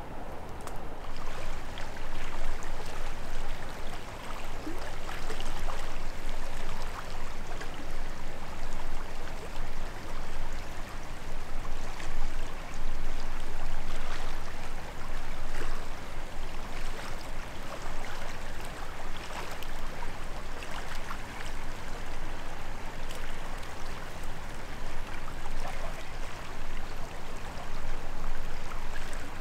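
Steady rush of flowing river water, with faint scattered ticks over it.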